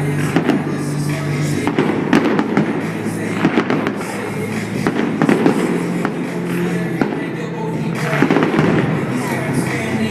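Fireworks display going off continuously: many sharp bangs and crackles in quick succession over loud music.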